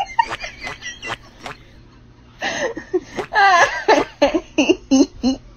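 A person laughing and giggling in short bursts, loudest from about two and a half seconds in. Sharp clicks are scattered through it.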